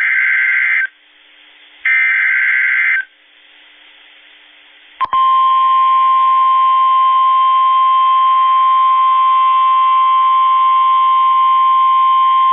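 Emergency Alert System SAME header data: two loud, warbling digital bursts about a second long, a second apart. A click follows about five seconds in, and then the steady single-pitch NOAA Weather Radio 1050 Hz warning alarm tone, the signal that a new weather warning is about to be read.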